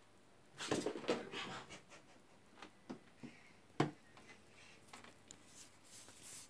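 A Devon rex cat hissing in a few short breathy bursts about a second in, followed by faint scuffling and one sharp knock near the middle.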